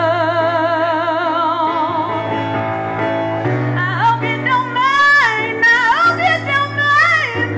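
A woman singing live with strong vibrato, holding one long note for the first couple of seconds, then singing shorter phrases that slide up in pitch. An electronic keyboard accompanies her with steady low sustained notes that change about halfway through.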